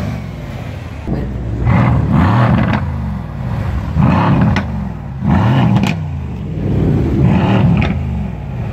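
Mercedes-AMG C63 S coupé's twin-turbo V8 revved in repeated blips, each rising and falling in pitch, about every one and a half seconds.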